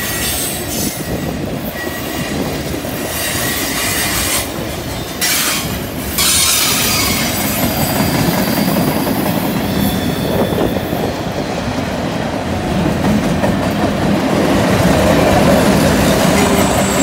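CN freight train's tank cars and flatcars rolling past on a curve: a steady loud rumble and clatter of steel wheels on rail, with faint wheel squeal from the curve at times.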